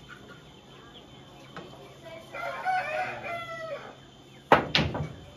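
A rooster crows once about two seconds in, a single long call. Near the end comes a sharp, loud clack of a cue striking the cue ball, followed at once by a second click of ball hitting ball.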